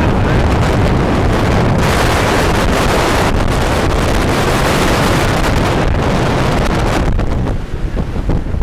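Strong wind of 50 to 60 miles an hour buffeting the camera microphone in loud, continuous rumbling gusts, strongest between about two and three and a half seconds in and easing a little near the end.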